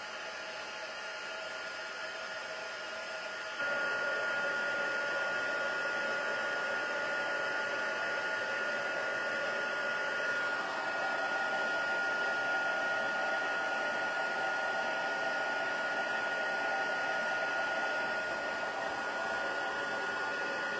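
Embossing heat tool blowing hot air steadily, a rush of air with a thin steady whine, melting embossing powder on a stamped sentiment. It gets louder about three and a half seconds in and stays that way.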